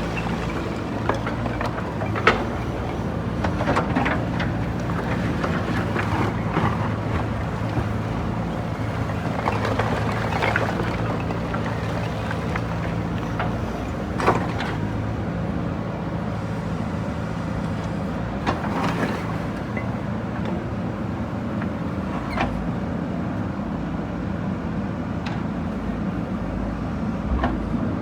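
JCB backhoe loader's diesel engine running steadily under work, with sharp knocks and clatters every few seconds as it breaks down brickwork.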